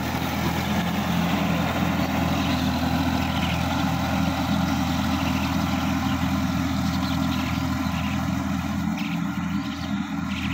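Sonalika DI-50 RX tractor's diesel engine running steadily while it pulls a rotary tiller through wet soil, growing slightly fainter near the end as the tractor moves away.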